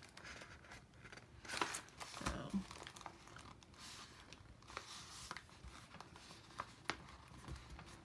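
A paper chip bag being handled and pressed shut at the top: faint crinkling and rustling with scattered light taps and clicks.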